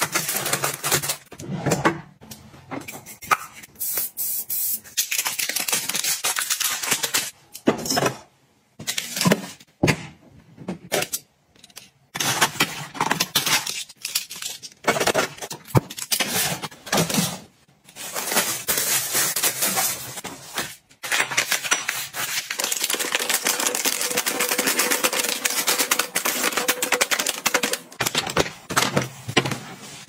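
Plastic and foil packaging crinkling and rustling in the hands, with short taps and clicks as packets are set into plastic drawer organizers. It comes in bursts broken by brief pauses, with a longer stretch of steady crinkling in the second half.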